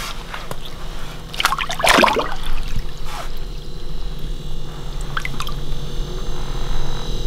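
Water splashing and sloshing in an ice-fishing hole as a released lake trout kicks its tail and swims back down, with the loudest splashes about two seconds in and a few smaller ones after.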